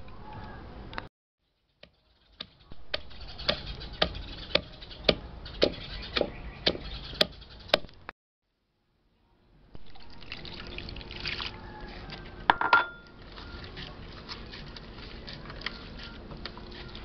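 A wooden pestle pounding chopped chillies, shallots and lemongrass in a mortar for a curry paste, about two strikes a second. Then a hand squeezes freshly grated coconut in water in a plastic tub to press out coconut milk, making wet squeezing and splashing sounds, with one brief sharp knock partway through.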